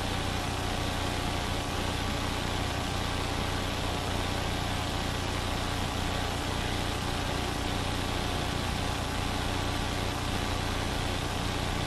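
Steady drone of a police helicopter heard from inside the cabin through the crew's intercom: an unchanging deep hum under a constant hiss.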